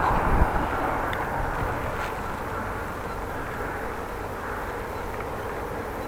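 Bicycle being ridden along, with steady tyre and road noise. Wind buffets the microphone with low gusts in the first half second.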